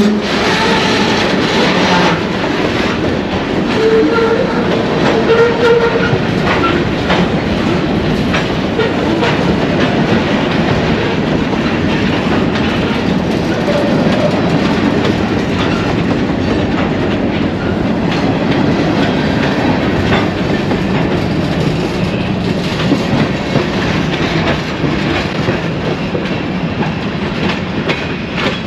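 Freight train of covered hopper cars rolling past close by: a steady rumble of steel wheels on rail with a run of repeated wheel clicks.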